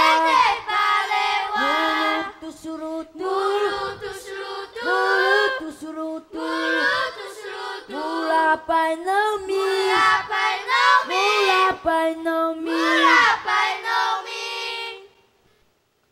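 Children singing together, a chant-like song in phrases with long held notes, that stops abruptly about fifteen seconds in.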